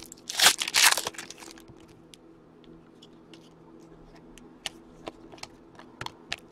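A trading-card pack wrapper crinkling and tearing for about a second near the start, then scattered light clicks and ticks as the hockey cards are slid and flicked through the hands.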